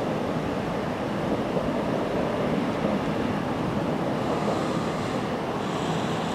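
Water gushing from a fire hydrant broken off by a car, a steady unbroken rush.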